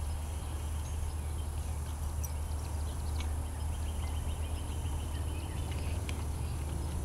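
Outdoor ambience: a steady low rumble of wind on the microphone, with small birds chirping faintly and one bird giving a rapid high trill for a couple of seconds midway.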